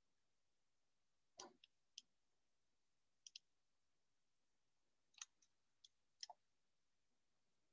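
Faint computer mouse clicks, about eight of them spread over several seconds, including two quick double clicks.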